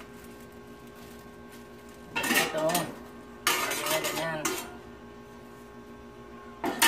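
Stainless steel tongs and spatula clattering against a stainless steel griddle plate as they are set down. There are two clattering spells about two and three and a half seconds in, and a sharp clank near the end.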